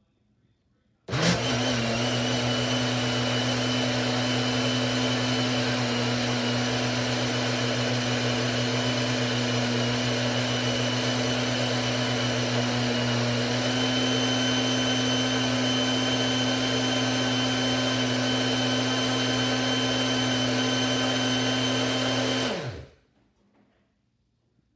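Yabano 500-watt personal blender running steadily as it blends a smoothie in its bottle. It starts abruptly about a second in and stops near the end, the motor's whine falling in pitch as it spins down.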